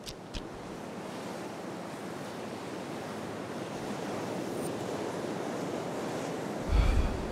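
Sea surf washing in steadily, with some wind, swelling up gradually. Two short clicks right at the start and a loud low thump shortly before the end.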